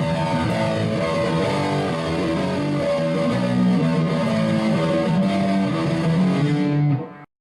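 Intro music led by guitar, which cuts off abruptly near the end.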